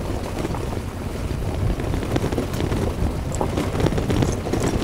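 Kawasaki Versys-X 300's parallel-twin engine running steadily while the bike rides over a rocky trail, with scattered clicks of stones under the street tyres. Wind noise on the microphone.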